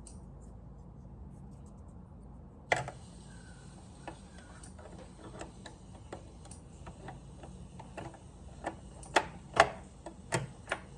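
Small clicks and knocks of sewing-machine parts being handled and fitted back into place: one sharp click about three seconds in, scattered light taps, then a cluster of louder knocks near the end.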